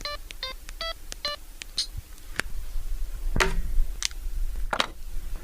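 A quick run of four short electronic beeps, each a slightly different pitch, followed by a few scattered sharp clicks and knocks.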